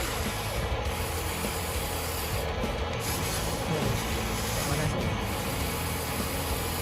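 Steady, gritty rubbing and scraping noise.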